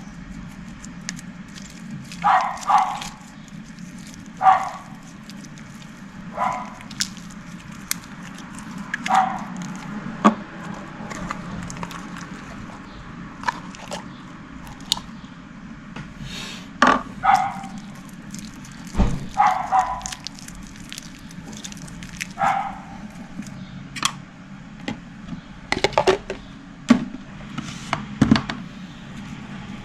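Soft slime being handled: short wet squelches and sharp little pops and clicks every second or two, over a low steady hum.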